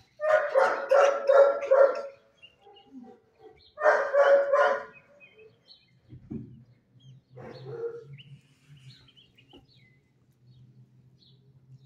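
Dog barking in quick runs of barks: two loud volleys in the first five seconds and a weaker one near eight seconds. A single low thud comes at about six seconds, and a low steady hum runs underneath after it.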